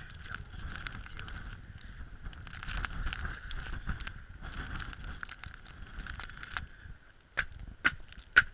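Wind buffeting the microphone over the crunch of footsteps through fresh snow. Near the end come three sharp knocks, the loudest sounds here, as the porch is reached.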